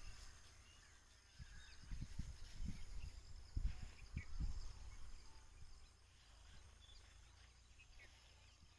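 Scattered dull knocks and handling noises from tool work on the engine, mostly in the first half, with birds chirping faintly in the background.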